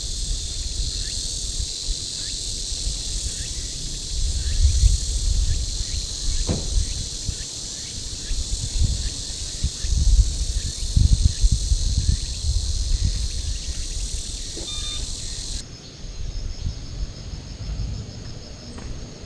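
Steady, high-pitched chorus of summer insects, with an uneven low rumble underneath. About three-quarters of the way through, the chorus changes abruptly to a thinner, pulsing one.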